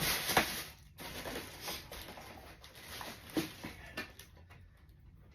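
Rustling and a few light knocks of a cardboard shoebox and its contents being handled during unboxing, dying down after about four seconds.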